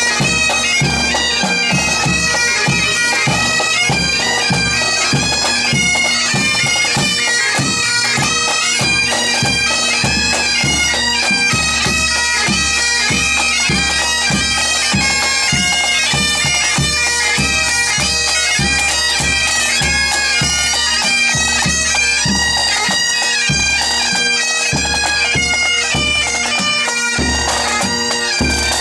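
Bagpipes playing a tune over a steady drone, with a regular drum beat underneath.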